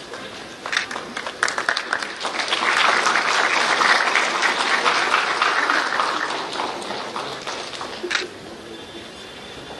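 Audience applauding: scattered claps build into full applause about two and a half seconds in, then die away over the next few seconds.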